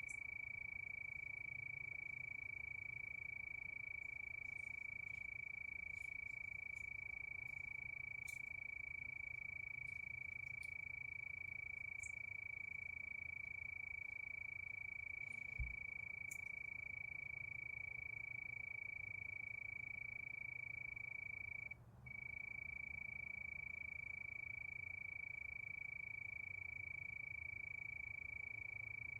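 Crickets chirping in a continuous high-pitched chorus held on one steady note, which breaks off for a moment about three-quarters of the way through. A single soft low thump about halfway through.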